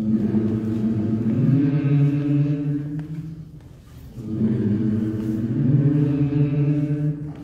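Liturgical chant sung by voices in two long phrases, with a short break for breath about four seconds in.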